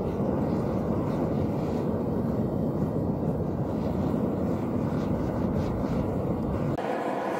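Gas burner of a small metal-melting furnace running steadily, a deep, even rushing noise. About seven seconds in, the low part of the sound drops away abruptly, leaving a thinner, higher rush.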